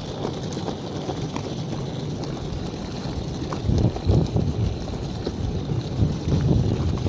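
Rolling suitcase wheels rumbling and clicking over pavement. Wind begins buffeting the microphone in gusts about halfway through.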